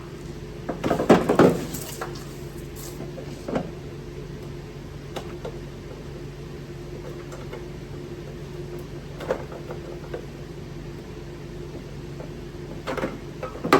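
Handling noises from work on the car's ECU wiring: a burst of clunks and rattles about a second in, a few lighter knocks later, and more clatter near the end, over a steady low hum.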